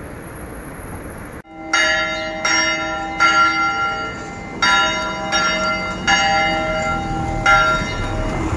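Church bells ringing: about seven strikes, roughly a second apart, each one ringing on and overlapping the next. Before them is a brief stretch of street noise that cuts off suddenly.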